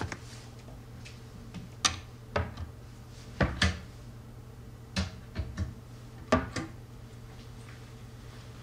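Knocks, clacks and clatters of objects being handled while a desk and its drawers are searched: about ten short, sharp sounds in small clusters, over a low steady hum.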